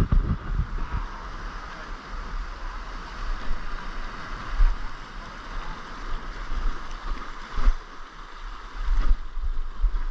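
Sea surf washing through a rocky gutter, a steady rushing hiss, with wind buffeting and handling thumps on a body-worn camera's microphone and one sharp knock about three-quarters of the way through.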